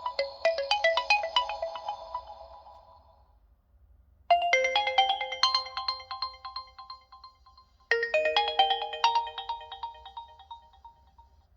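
Realme 11 Pro+ ringtones: a bright, bell-like melody of quick notes fades out about three seconds in. After a second's pause a different short phrase plays twice, each time starting sharply and dying away.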